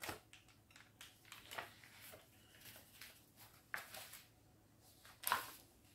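Faint rustles and light clicks of a paper cross-stitch chart being handled, with a louder brief rustle about five seconds in.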